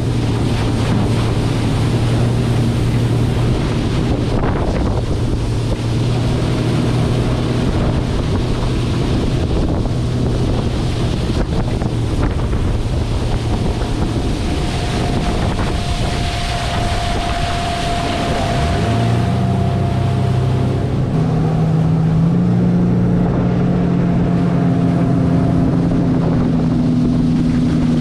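Bass boat's outboard motor running under way, with wind buffeting the microphone and water rushing past the hull. A little past halfway the engine's pitch rises as it speeds up and stays higher.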